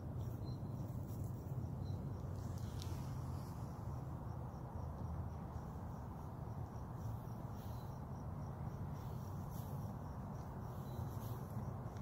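Crickets chirping in a steady, even rhythm, with a low steady rumble underneath.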